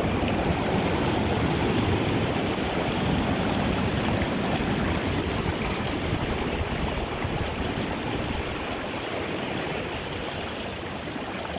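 Ocean surf breaking and washing over shoreline rocks: a steady rushing of water that eases slightly near the end.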